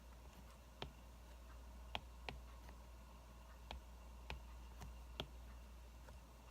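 Wood fire crackling: sparse, irregular sharp pops, about seven in a few seconds, over a faint low hum.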